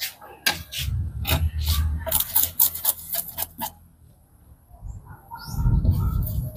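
Kitchen knife scraping along a small fish on a wooden chopping board, a quick run of short rasping strokes for about three seconds. After a lull about four seconds in come duller, lower knocks of the fish and board being handled near the end.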